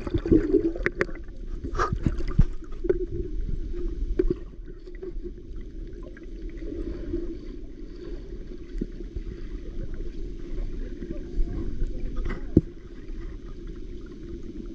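Muffled river water with scattered sharp clicks and knocks, thickest in the first couple of seconds and once more near the end.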